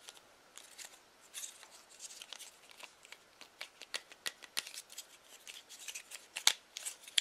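Small hard-plastic Bumblebee Transformers figure handled and bent at its joints: a run of light plastic clicks and rattles, sparse at first and then quick and frequent, the sharpest click about six and a half seconds in.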